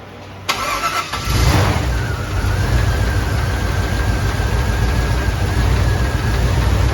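A 283 small-block Chevrolet V8 with throttle-body fuel injection being started: a brief burst of cranking, then the engine catches about a second in and runs steadily, with a thin high whine over it.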